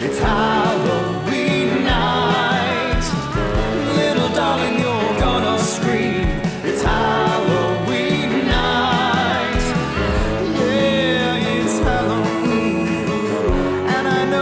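A song playing: a sung vocal line over a band with steady bass notes and occasional drum hits.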